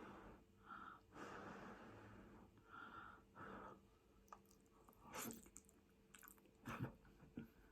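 Faint chewing and mouth sounds of someone eating a mouthful of food, with a few sharp clicks in the second half.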